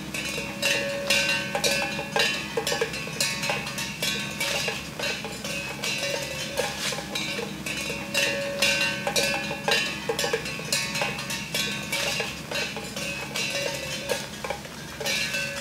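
Music of metal percussion: quick, ringing, bell-like strikes, several a second, over held tones in a repeating pattern.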